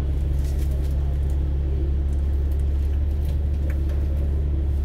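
Double-decker bus's diesel engine idling while the bus stands still, a steady low hum heard from inside the upper deck, with a few faint ticks.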